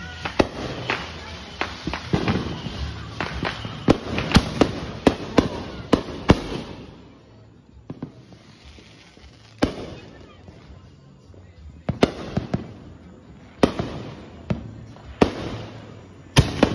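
Consumer aerial fireworks going off: a dense run of sharp bangs and crackles for about the first seven seconds, then a lull of a few seconds. After that come single bangs every second or two, with a quick cluster of them near the end.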